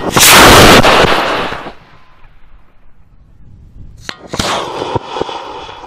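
High-power model rocket motor igniting at liftoff: a loud rushing blast that fades over about a second and a half as the rocket climbs away. About four seconds in comes a sharp crack and a second, quieter rocket blast that fades out.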